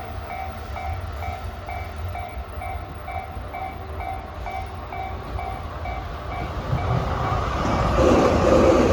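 Japanese level-crossing alarm bell ringing in an even electronic ding about twice a second. From about seven seconds in, the noise of an approaching train led by an EF81 electric locomotive rises over it and is loudest near the end.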